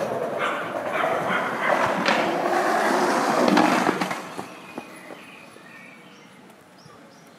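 Skateboard wheels rolling on pavement, loud for about four seconds and then fading away, with a click or two.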